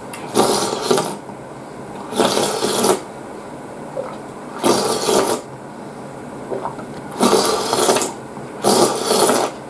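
A person slurping thick tsukemen dipping broth from a spoon: five separate slurps, each lasting under a second, spaced about one and a half to two and a half seconds apart.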